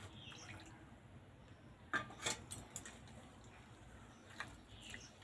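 Hands kneading a damp rice-flour and maida dough in a stainless-steel bowl: faint squishing, with a few light clinks against the bowl, the sharpest about two seconds in.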